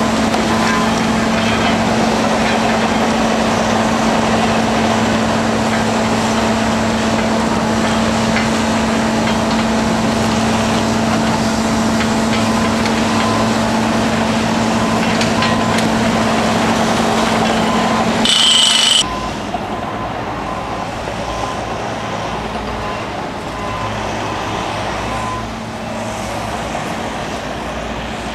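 Diesel engine of a truck-mounted mobile crane running steadily with a constant hum. About 18 seconds in there is a brief loud high-pitched burst, after which the machine sound drops to a quieter, lower rumble.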